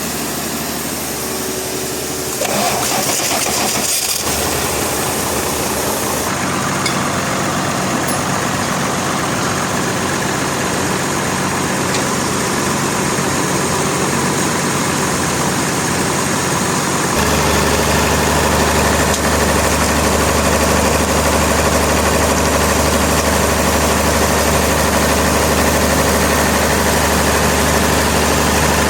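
Engine-driven sawmill machinery running with a steady drone, which steps up about two and a half seconds in and takes on a louder, deeper hum a little past halfway.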